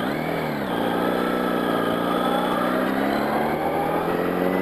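Yamaha R1's inline-four engine under way: a short rise and fall in pitch in the first second, then a steady note that slowly climbs in pitch as the revs build.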